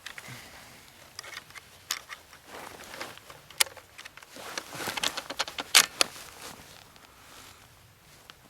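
Irregular sharp metallic clicks and rattles of 7.62×51 rifle cartridges being handled and pushed into a magazine, with a loud cluster of clicks about five to six seconds in, thinning out near the end.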